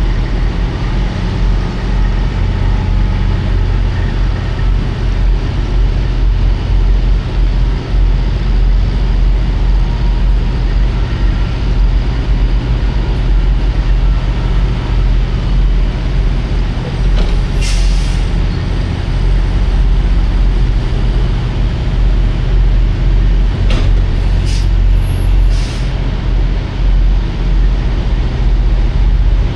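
Semi truck's diesel engine running steadily, with a few short air-brake hisses about two thirds of the way through.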